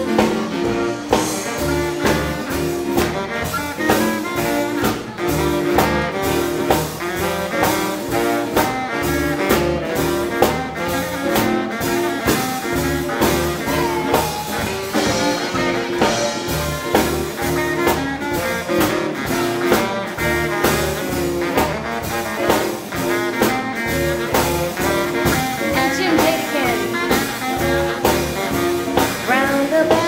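Live swing band playing an instrumental break, horns carrying the tune over a steady walking bass beat.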